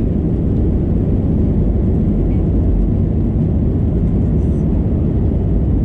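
Loud, steady rumble inside the cabin of an Airbus A320 rolling along the runway: jet engine noise and rolling noise heard through the cabin from a window seat.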